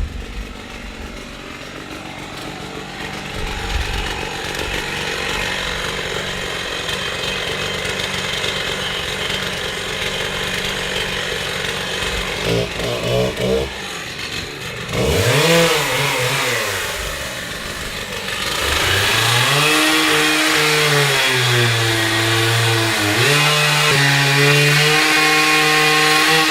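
Chainsaw engine running, at first steady and in the background; about halfway through its pitch rises and falls as it is revved. In the last third it runs louder with a wavering pitch.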